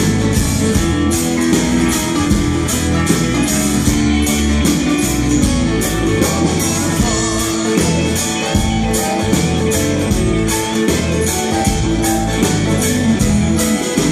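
Live Americana rock band playing, with electric and acoustic guitars strummed over drums keeping a steady beat.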